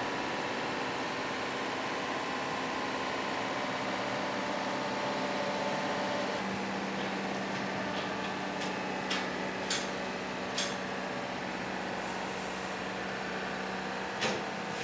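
Steady running of a mobile crane's engine while it holds a suspended crate, with a low hum that strengthens about six seconds in. A few short sharp clicks sound in the second half.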